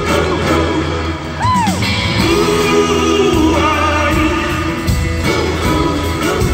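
Live rock band in a large arena, heard from the audience: electric guitar and drums with singing. A short swooping note rises and falls about a second and a half in.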